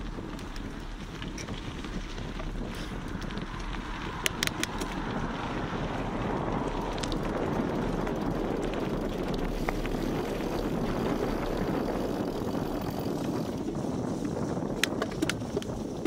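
Mountain bike ridden over a dirt and gravel trail: steady noise of knobby tubeless Continental tyres rolling, with wind on the microphone. A few sharp clicks and rattles come about four seconds in and again near the end.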